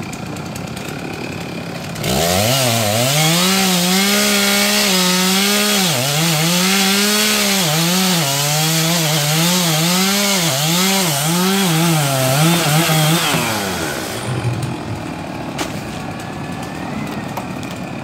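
Gas chainsaw revving to full throttle about two seconds in and cutting through the base of a large tree trunk for about twelve seconds, its pitch dipping and recovering again and again as the chain bites into the wood, then dropping back to idle.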